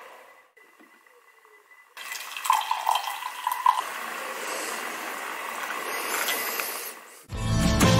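Coffee poured from a French press into a mug: a steady stream of liquid splashing and filling, starting about two seconds in. Music starts near the end.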